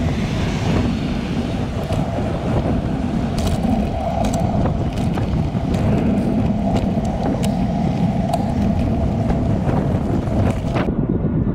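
Wind buffeting the microphone of a bike-mounted camera, with steady road rumble from a bicycle riding along a street.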